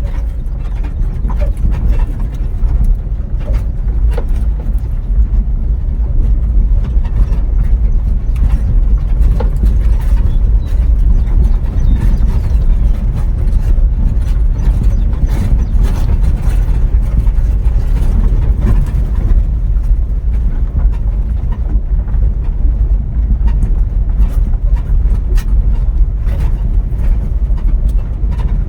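A vehicle on the move: a loud, steady low rumble of road and wind noise, with faint scattered clicks and rattles.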